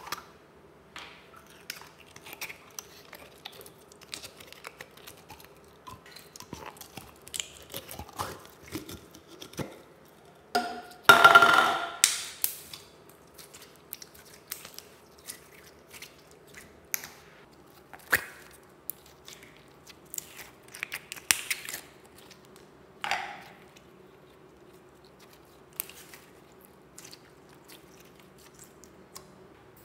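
Hands squeezing and kneading clear glitter slime in a bowl: scattered small wet clicks and squishes, with one louder, longer squelch about eleven seconds in.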